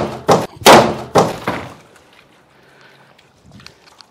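A wooden baseball bat fitted with a metal blade striking a large plastic water jug again and again: a rapid series of loud, heavy thuds in the first second and a half, cracking the jug.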